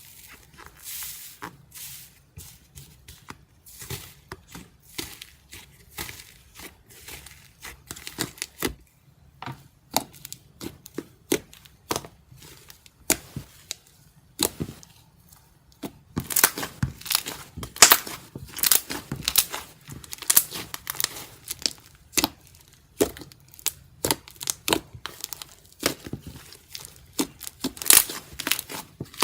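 Iceberg slime, a slime with a hardened crust, crackling and crunching in many sharp, irregular pops as it is pressed and broken up, growing denser and louder past the middle.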